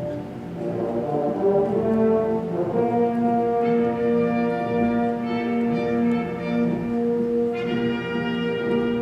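Youth symphony orchestra playing held chords with the brass to the fore, horns prominent; fuller, brighter brass chords come in about three and a half seconds in and again near the end.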